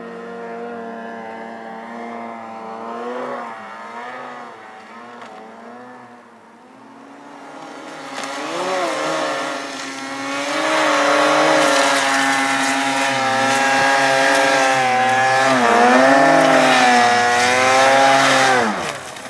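Ski-Doo Summit XM 800 E-TEC two-stroke snowmobile engine revving up and down as the sled climbs a snowy slope under load, getting louder as it comes closer; the revs fall away sharply near the end.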